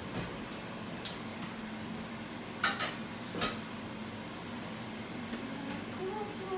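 A few light knocks and clicks from handling a sneaker and its cardboard shoebox on a wooden table, two of them close together in the middle, over a steady low background hum.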